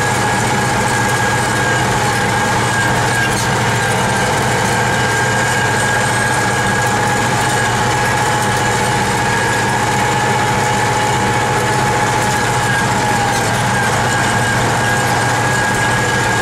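T-150K wheeled tractor's diesel engine running steadily while driving along, heard from inside the cab, with a steady whine above the engine hum.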